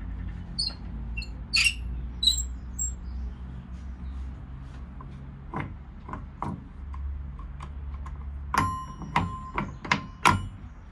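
Metal fittings in an old steam locomotive's cab being handled by hand. There are a few high squeaks early on, a couple of knocks, then a quick run of sharp metallic clicks and taps that ring briefly, near the end.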